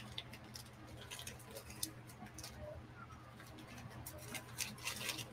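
Faint, irregular small clicks and light rustling from jewelry being handled by hand, over a steady low hum.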